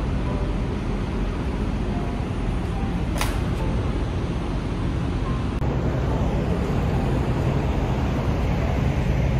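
Steady rumble of vehicles and machinery in a truck tyre shop bay, with a short sharp hiss about three seconds in.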